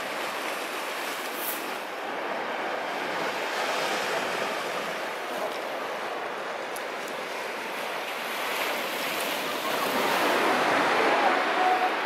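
Sea surf breaking and washing over a flat rock shore: a continuous rush of white water that swells louder near the end.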